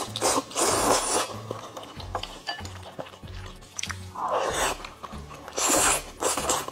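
Spicy instant noodles being slurped up from chopsticks, in three loud breathy slurps, over soft background music with a steady bass line.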